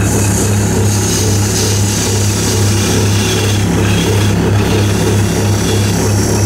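Wood lathe running with a steady hum while a narrow turning tool cuts into the spinning wood, giving a continuous high hiss over the motor.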